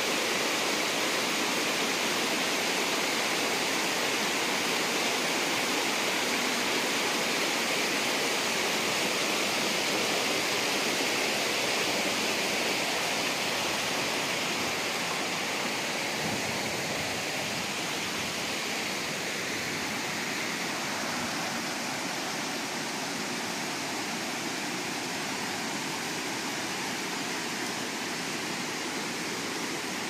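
Steady rush of fast-flowing creek water, an even hiss-like noise that gets a little quieter from about halfway through.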